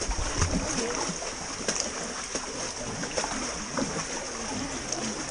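Water sloshing and splashing as swimmers stroke and kick through an underground river.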